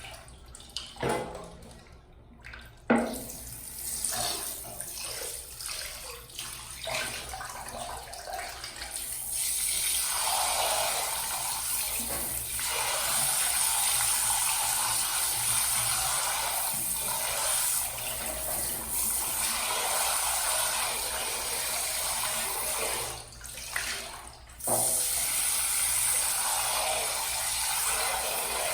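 Water running from a tap into a sink, starting about nine seconds in and stopping briefly near the end. Before it come a few scattered knocks and clatter.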